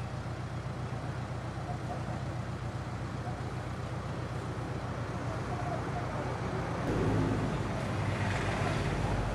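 Minibus engine idling with a steady low hum, a little louder from about seven seconds in.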